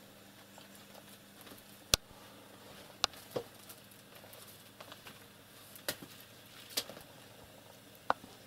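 Cats jumping and scrambling over shelves, boxes and papers: scattered sharp knocks and light thumps, about six in all, the sharpest about two seconds in.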